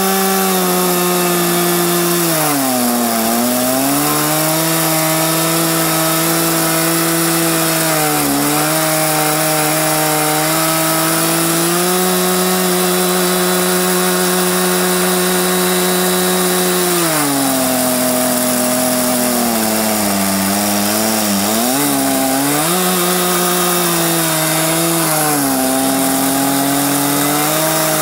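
Two-stroke chainsaw powering an Alaskan sawmill, running near full throttle while ripping along a log. Its pitch sags under load about three seconds in and again for several seconds past the middle, then climbs back.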